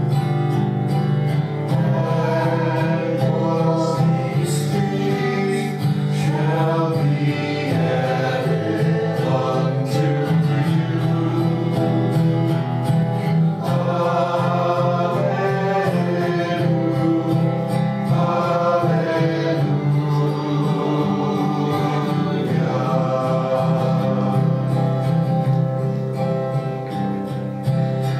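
A hymn sung with instrumental accompaniment: the offertory music of a Catholic Mass, during the preparation of the gifts.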